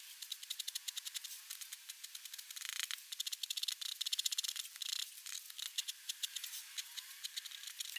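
Black pigment pen nib on paper, making rapid short scratchy strokes and taps, many per second, with a few slightly longer strokes mixed in.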